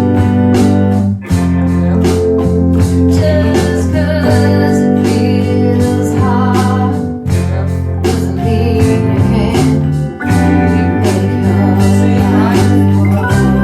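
A live band playing a song, with guitars, bass and drums keeping a steady beat and a wavering melody line on top.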